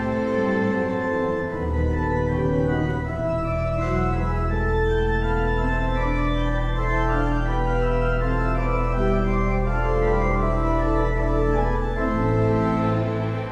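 String orchestra playing a slow piece in long sustained chords over a held low bass note, the bass changing near the end.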